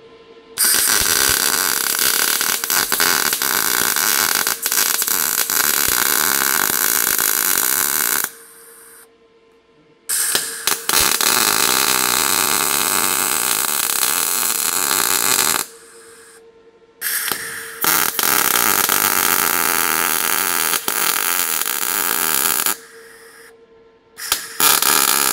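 MIG welding arc crackling as 0.8 mm wire plug-welds a thin sheet-metal repair patch through drilled-out spot-weld holes. There are three long welds of about six to eight seconds each, split by short pauses, then a brief burst near the end.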